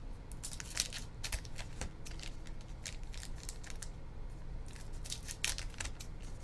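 Trading-card packaging being opened by hand: irregular crinkling and crackling of plastic wrap and foil, with sharp little clicks and snaps, as a sealed box of football cards is unwrapped.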